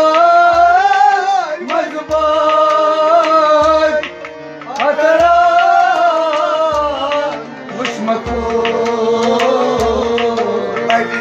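Harmonium playing sustained notes under a man singing long, bending phrases of a Kashmiri kalam (devotional song), with a hand drum striking about once a second.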